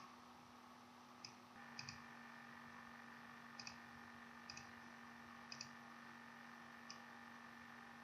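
Faint computer mouse clicks, single and in quick double-click pairs, about eight in all, over a low steady electrical hum that rises slightly about a second and a half in.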